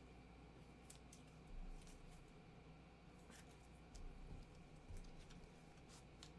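Near silence with faint scattered clicks and a few soft thumps: trading cards and a foil pack being handled on a table.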